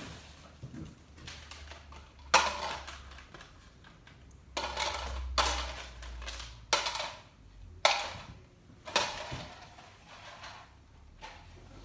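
Hard household objects being rummaged through and knocked about: a string of about six sharp clattering knocks with short rattles, the loudest about two seconds in, over a faint steady hum.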